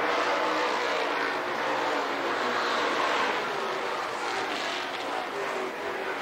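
Stock car engines running on the race track: several cars at speed, their overlapping engine notes rising and falling, easing off a little in the second half.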